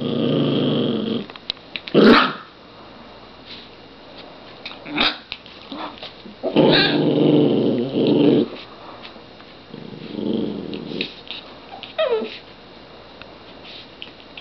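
Small dog play-growling in long low rumbles, three stretches of a second or two each, with short sharp sounds in between, the loudest about two seconds in.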